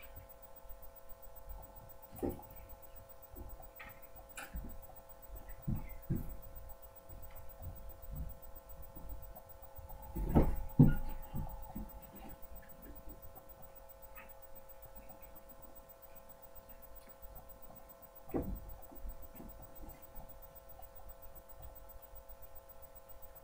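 A steady electrical hum made of several held tones, broken by dull low thumps of handling noise on the microphone. The loudest thumps come about ten to eleven seconds in.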